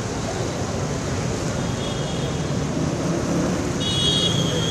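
Floodwater rushing steadily along a concrete storm-water drain, running high after heavy rain. A faint high-pitched tone joins near the end.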